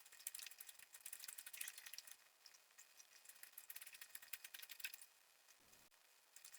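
Faint, quick clicking and snipping as a hedge is clipped, in two spells: through the first two seconds and again from about three and a half to five seconds in.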